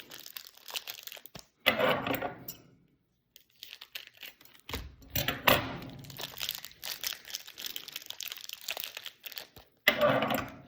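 Trading card pack wrappers being torn open and crinkled, with cards shuffled and handled. The rustling comes in irregular bursts: louder about two seconds in, around five seconds in, and again near the end.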